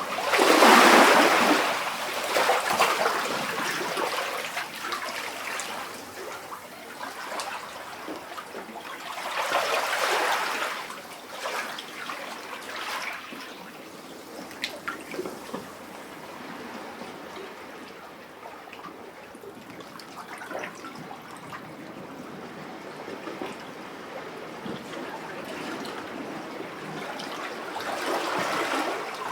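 Sea waves lapping and sloshing in a rock cavity: a large surge about a second in, another near ten seconds, calmer trickling and dripping between them, and a third surge building near the end.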